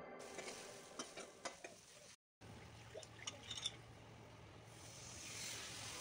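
Faint clinks of a steel ladle against a kadai as vegetables and sambar powder are stirred. After a brief cut, tamarind-salt water is poured from a steel bowl into the kadai with a soft splashing hiss near the end.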